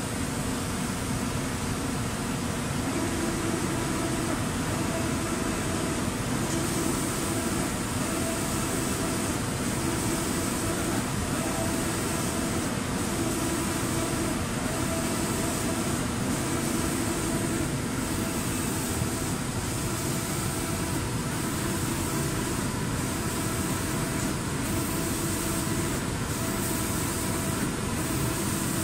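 Automatic door spray-painting machine running: a steady machine hum from its fans and motors, with a high hiss of spray that strengthens about six seconds in and breaks off briefly again and again in the second half.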